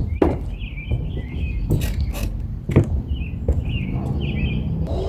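Small birds chirping repeatedly, broken by a few sharp knocks, over a steady low rumble.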